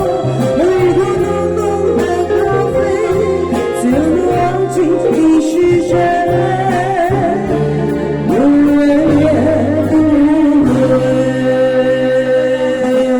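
A solo voice singing a slow ballad over instrumental accompaniment, with long held notes and pitch slides, including a slide up into a long sustained note about eight seconds in.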